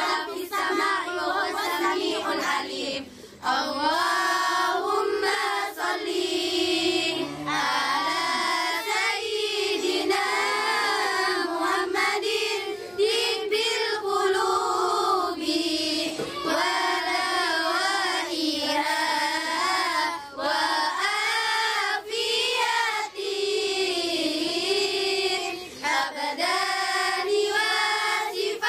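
A high-pitched voice singing a flowing melody with light musical backing.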